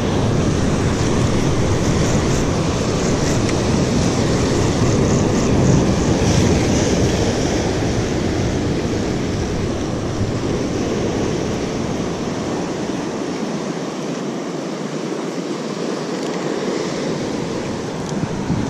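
Sea surf breaking and washing over rocks, with wind buffeting the microphone. The deep rumble drops away for a few seconds about two-thirds of the way through.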